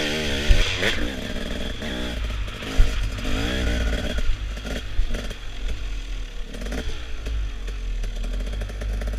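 Dirt bike engine revving up and down as it is ridden over a rough dirt track, with two sharp knocks, one about half a second in and one nearly three seconds in.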